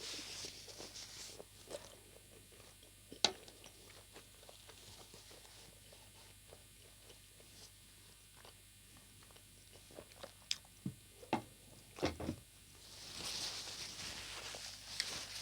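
Close-miked chewing and mouth sounds of a person eating chicken momos: scattered sharp wet clicks and smacks, a cluster of them about ten to twelve seconds in, and a longer rushing noise near the end.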